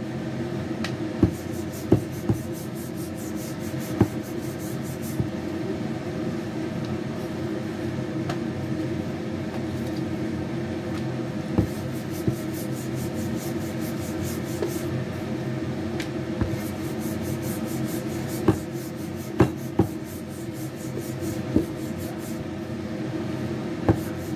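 Wooden rolling pin rolling chapati dough on a board: a steady rubbing, broken by a dozen or so sharp knocks of wood on the board at irregular moments.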